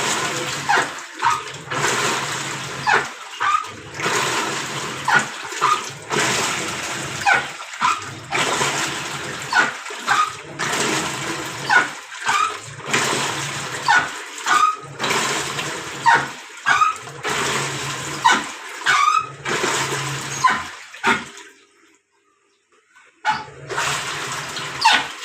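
Videocon Digi Atlantic Eco washing machine agitating its wash load: water sloshes with each back-and-forth stroke, about one a second, and each stroke carries a short squealing grind that the title puts down to a defective gearbox. The agitation pauses for a couple of seconds near the end, then starts again.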